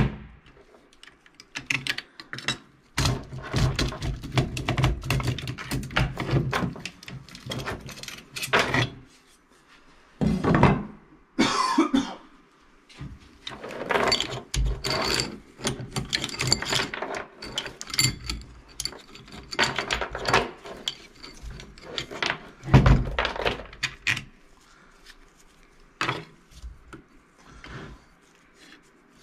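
Steel saw chain and guide bar of a chainsaw clinking and rattling on and off as they are taken off the saw and handled on a wooden workbench, with a few louder knocks.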